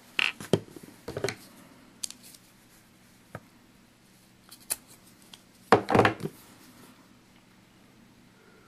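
Scissors snipping through a small piece of fabric: a handful of separate short snips and clicks, the loudest a quick cluster about six seconds in.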